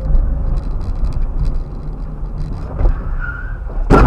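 Heavy vehicle rumble with road and wind noise and scattered clicks, then a sudden loud burst of noise just before the end.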